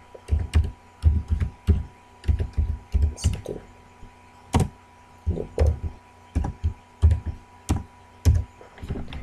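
Keystrokes on a computer keyboard: slow, irregular single taps with short pauses between them as a word is typed.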